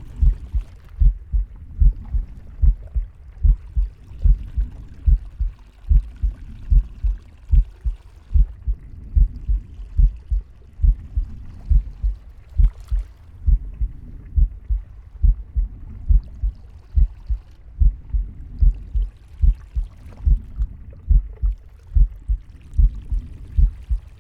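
Heartbeat picked up close against the body: a steady run of deep, low thumps, about two a second.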